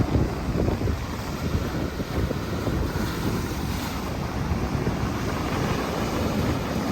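Wind buffeting the microphone over the wash of sea waves, a steady gusty rumble.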